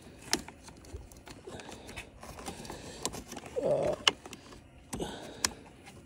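Light plastic clicks and rattles, a few separate ones spread out, as a wiring harness connector and plastic trim clips are handled and pushed into place. A short voice sound comes a little past the middle.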